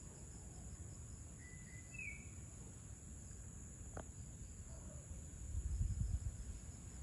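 Insects shrilling steadily at one high pitch, with a single short rising bird chirp about two seconds in and one sharp click near the middle. A low rumble swells briefly near the end.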